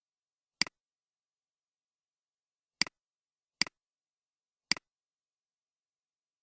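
Four computer mouse clicks against silence, spaced irregularly. Each is a sharp press followed closely by a softer release.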